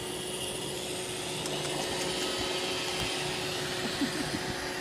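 iRobot Roomba 650 robot vacuum running, picking up sand and dirt from the floor: a steady motor whir with one constant tone through it.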